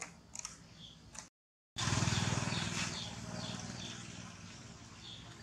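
Outdoor ambience: a brief dropout, then a loud low rumble that fades away over a few seconds, with high chirps repeating about twice a second.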